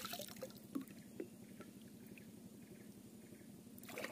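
Quiet handling sounds in a small wooden boat: a few light knocks against the hull over a faint steady low hum, with a short louder noise near the end.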